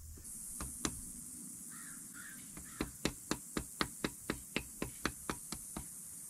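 Mallet tapping a metal punch against the gland end of a John Deere 148 loader's hydraulic lift cylinder, driving the gland in: a couple of taps early, then an even run of light taps about four a second through the second half. A crow caws twice about two seconds in.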